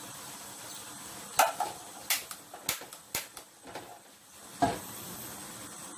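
Kitchen utensils knocking against cookware on a stovetop: about five separate sharp clacks, loudest about a second and a half in.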